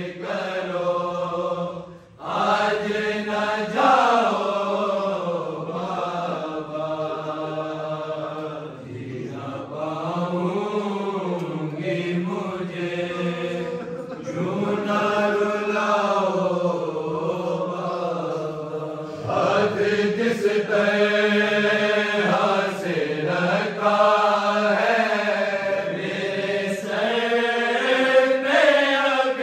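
A group of men reciting a noha (Shia lament) unaccompanied, in long, drawn-out sung lines, with a steady low held note under the melody.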